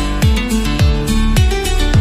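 Background music: an upbeat instrumental track with a steady kick-drum beat.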